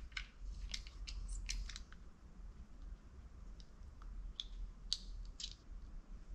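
Irregular light clicks and taps of small metal parts being handled as a loosened bore cap is unscrewed from a Hope Tech hydraulic brake caliper, with a few sharper clicks near the end.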